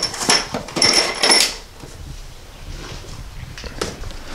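Steel engine head studs and nuts clinking in their box as it is handled, several sharp metallic clinks in the first second and a half, then quieter handling and a single knock near the end.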